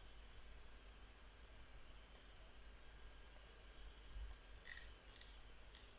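Near silence: a handful of faint computer mouse clicks, irregularly spaced, over a steady low hum.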